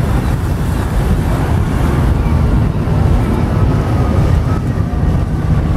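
Steady wind noise on the microphone aboard a moving boat, heavy and rumbling in the low end, with the boat's running and water noise underneath.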